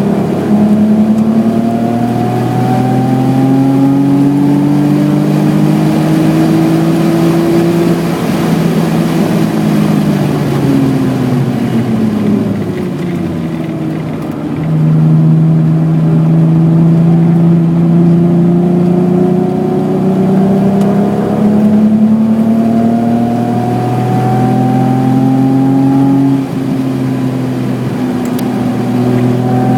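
BMW E28's 3.6-litre straight-six engine under hard acceleration, its pitch climbing, then falling away for several seconds as the car slows for a corner. It then pulls hard again, with short drops in pitch at upshifts near the 22- and 26-second marks.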